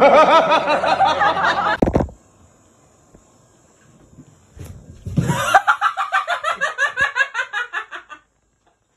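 Hearty human laughter in rapid repeated pulses, once at the start for about two seconds and again from about five seconds in until about eight seconds in.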